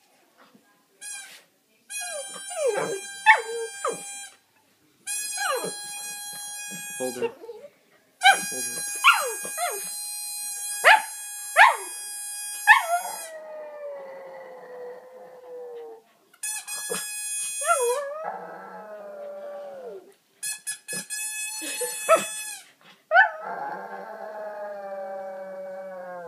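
A squeaky chew-toy whistle sounded in about five long steady tones, with a Chihuahua howling along: its howls glide up and down over each tone and trail off, falling in pitch, after the whistle stops.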